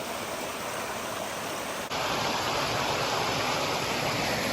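Shallow mountain creek rushing steadily over rocks. It jumps suddenly louder about two seconds in.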